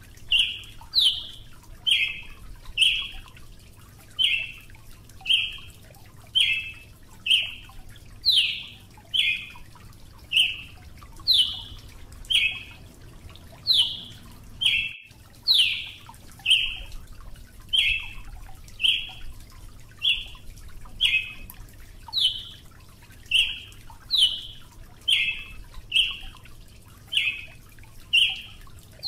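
Brazilian tanager (Ramphocelus bresilius) calling: a steady series of short notes about one a second, some of them sweeping down from a higher pitch.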